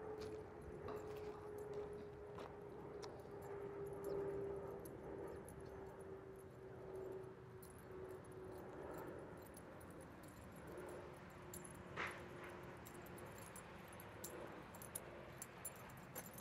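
Metal tags on a trotting Siberian husky's collar jingling faintly in small scattered clinks, over a steady hum that slowly falls in pitch.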